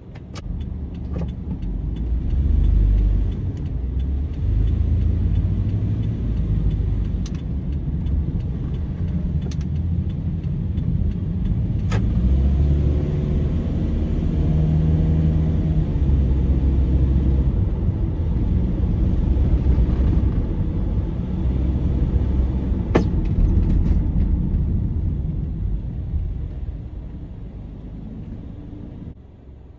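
Car driving, heard from inside: a steady low engine and tyre rumble, with a couple of short knocks along the way. The rumble drops as the car slows to a stop near the end.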